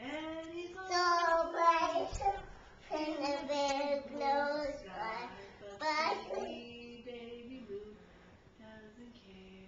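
A toddler singing in a high voice, holding long notes in a few short phrases, growing softer and trailing off in the last few seconds.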